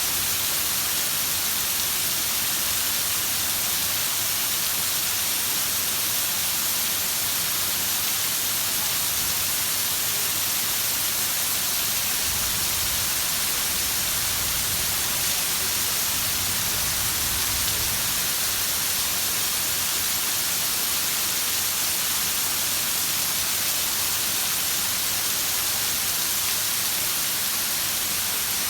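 Heavy rain falling in a steady, dense hiss, with a faint low rumble for several seconds partway through.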